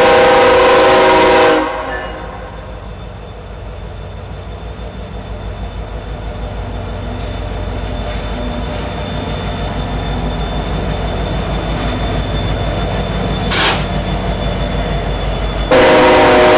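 Norfolk Southern diesel freight locomotive sounding its horn in a loud blast of about a second and a half. Then comes the low rumble of its engine, growing slowly louder as it approaches, and another horn blast starts about a second before the end.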